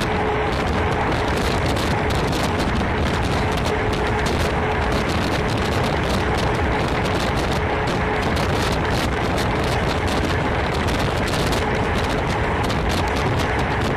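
Steady rush of wind and rail noise from a moving passenger train, heard at an open carriage window, with wind buffeting the microphone. A faint steady tone runs underneath.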